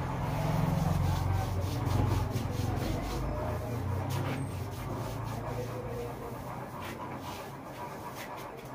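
Hands rubbing and squeezing a man's arm and hand during a barber's massage, with scattered soft clicks and taps, the sharpest one at the very end. Under it a low rumble swells in the first two seconds, then fades.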